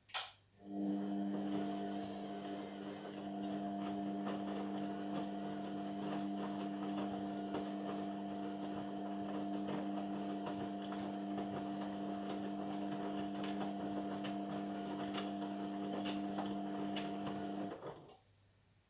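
Indesit washing machine, partway through a sport wash, running in one stint: a relay click, then a steady motor hum with water sloshing and ticking over it for about seventeen seconds before it cuts off.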